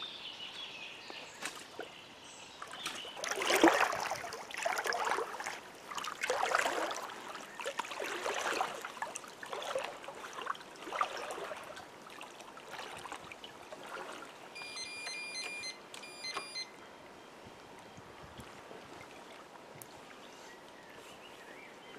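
Shallow lake water sloshing and splashing in irregular bursts, as someone wades beside a boat, settling into quieter lapping in the second half.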